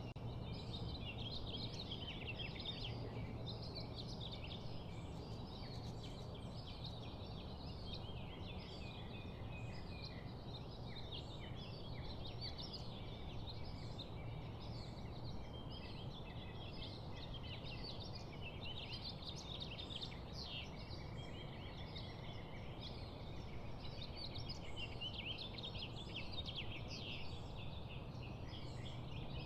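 Dense, continuous chattering and chirping of many small birds, as from a flock or aviary, over a steady low hum.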